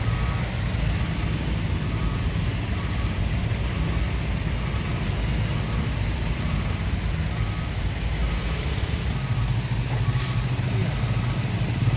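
A vehicle's reversing alarm beeping about once a second over the steady low rumble of heavy vehicle engines running in slow traffic, with a brief hiss about ten seconds in.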